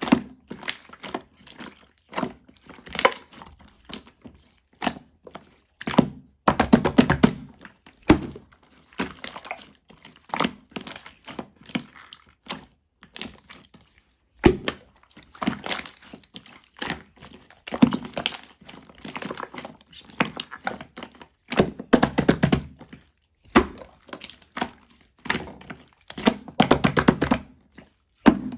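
Clear slime being squeezed and kneaded by hand to work in coloring. It gives repeated bursts of sticky clicks and little popping crackles, each about a second long, with short pauses between.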